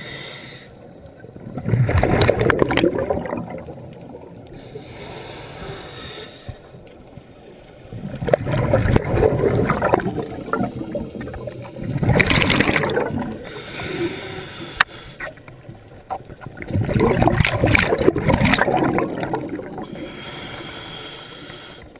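Scuba diver breathing through a regulator underwater: a quieter hiss on each inhale, then a loud bubbling rush of exhaled air, about four breaths in all.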